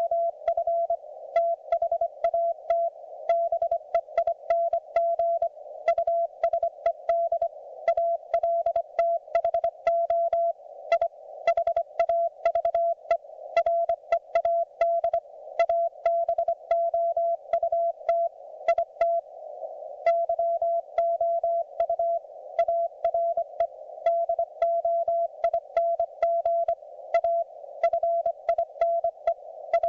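Morse code (CW) from a YouKits HB-1B QRP transceiver: a single mid-pitched tone keyed on and off in dots and dashes at a steady pace, over a narrow band of receiver hiss, with a brief pause in the sending about two-thirds of the way through.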